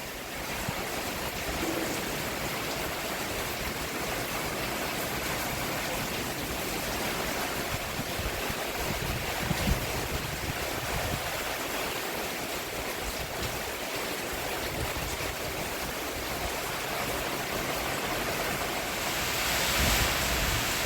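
Rain falling steadily on a roof, an even hiss with occasional low thumps, swelling louder near the end.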